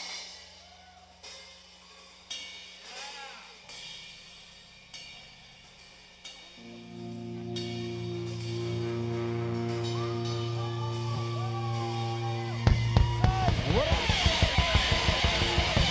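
Live rock band's intro: scattered cymbal hits, then a held low chord from about six seconds in, and the full drum kit crashing in with a fast, loud beat near the end.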